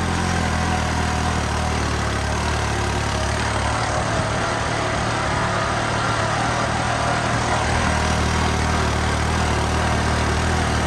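New Holland 3630 tractor's three-cylinder diesel engine running steadily while driving in third high gear, with its fuel delivery turned up and pulling without bogging down.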